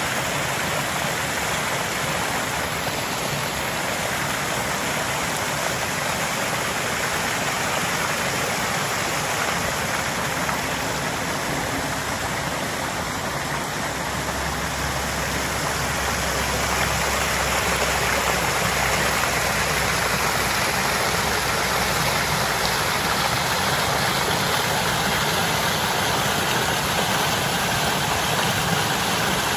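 Small woodland waterfall splashing down a bank into a shallow pool, a steady rushing of water. It grows louder about two-thirds of the way through, heard close up in the falling water.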